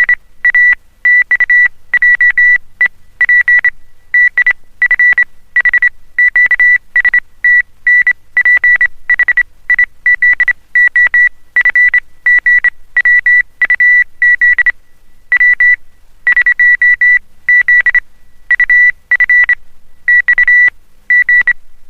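Morse code oscillator sending a message at high speed: a high-pitched beep at one steady pitch, keyed on and off in short and long pulses grouped into letters with brief gaps between them.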